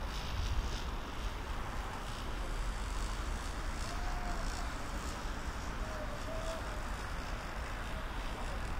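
Steady low rumble of city traffic, with faint, regular footsteps on asphalt.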